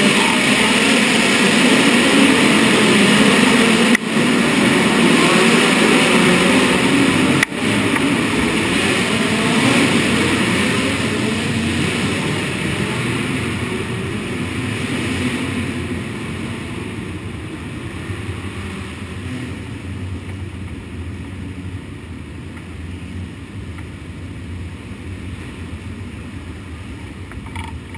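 Race car engine running loud, cut off sharply for an instant twice, about four and seven and a half seconds in, then gradually growing quieter through the second half.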